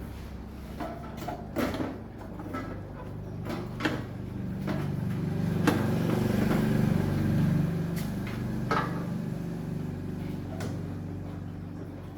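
A low mechanical hum that swells for a few seconds in the middle and then eases off, with scattered light knocks and clicks over it.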